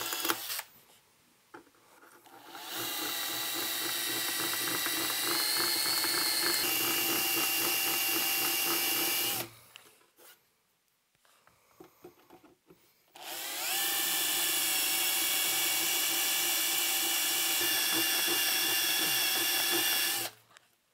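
Hand-held drill running with its bit slotting holes in an amplifier chassis: two steady runs of about seven seconds each, a few seconds apart, with a slight change in pitch partway through the first.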